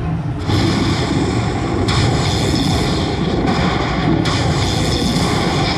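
Chica Bonita slot machine playing a loud, steady rumbling thunder-like sound effect, starting about half a second in, as its lightning 'Winner' screen tallies the bonus win.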